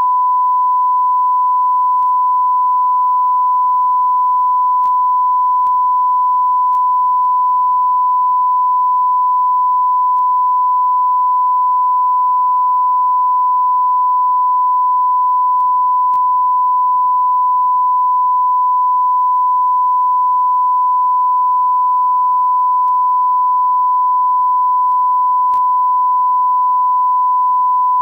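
Steady, unbroken 1 kHz test tone: the line-up reference tone a TV station broadcasts with its colour bars after sign-off.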